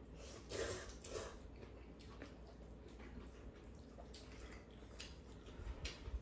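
Noodles being slurped twice in quick succession, about half a second and a second in, then a few light clicks of chopsticks against bowls.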